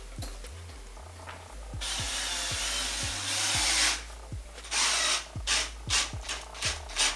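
A power drill runs for about two seconds, then in several short bursts, most likely fitting new cabinet knobs.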